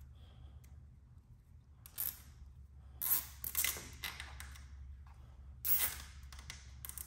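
Hands working cables and small fittings on an e-bike frame: several short scraping, rustling bursts, the busiest stretch a little past the middle, over a steady low hum.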